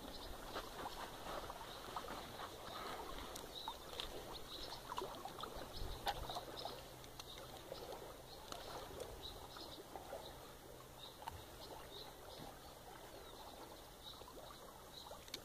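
Faint scattered clicks and rustles of a hooked carp being handled and unhooked with pliers, over a low background of flowing creek water.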